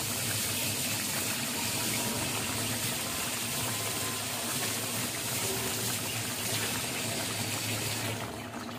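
Prawn and kohlrabi curry boiling in a metal wok: a steady bubbling hiss that stops near the end.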